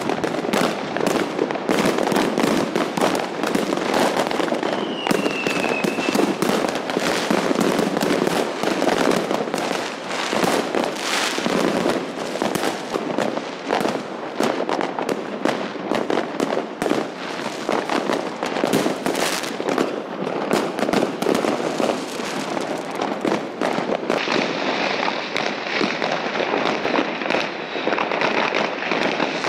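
Many fireworks and firecrackers going off at once in a dense, unbroken crackle of bangs and pops. A short falling whistle comes about five seconds in, and a steady high hiss joins in the last few seconds.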